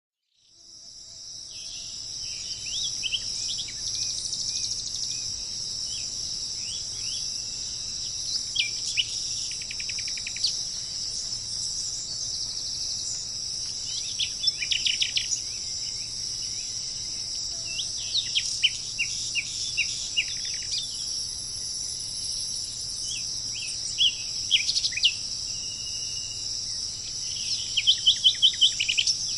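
A steady, high-pitched insect chorus fades in over the first couple of seconds, and birds call over it in short chirps and quick trills. The loudest is a fast run of chirps near the end.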